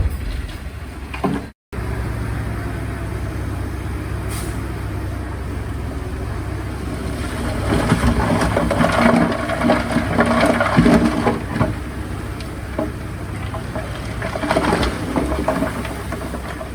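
Heavy diesel earthmoving machinery running with a steady engine drone and metallic rattling and clanking, which grows louder for several seconds in the middle.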